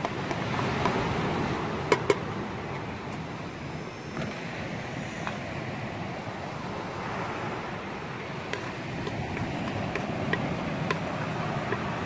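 Steady noise of wind and sea surf. Two sharp taps about two seconds in, from a wooden spoon knocking the last chopped onion off a plastic plate into an aluminium pot.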